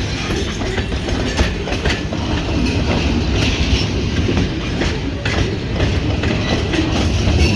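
Freight cars rolling past on rough, crooked track: a steady heavy rumble with irregular wheel clacks and knocks as the cars rock.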